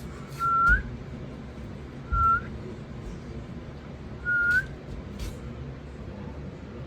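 Sulphur-crested cockatoo whistling three short notes about two seconds apart, each a level tone that flicks upward at the end.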